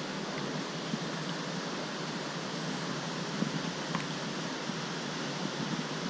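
Steady rushing of a flood-swollen stream over rocks, an even hiss of water with a few faint clicks partway through.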